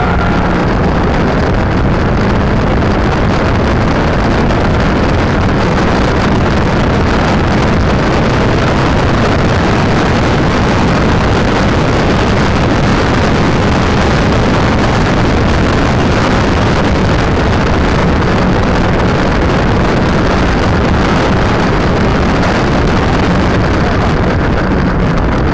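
A car driven at speed on a track: a steady engine note under loud, constant wind rush and buffeting on a small keychain camera's microphone.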